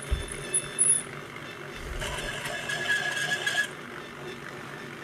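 Short high squeaks and clicks in the first second. About two seconds in, a brass prep center's small electric motor runs briefly with a steady whine, stopping after about a second and a half.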